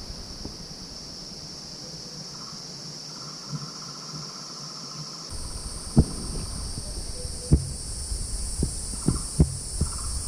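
Steady high-pitched chorus of forest insects, with a lower pulsing insect trill coming and going, and the chorus shifting a little higher about five seconds in. From about six seconds in, a series of dull thumps sounds over it.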